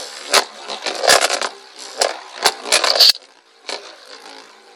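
Plastic Beyblade Dranzer V on its flat tip spinning in a plastic stadium, scraping and clattering with repeated sharp knocks for about three seconds. It then settles into a quieter whir.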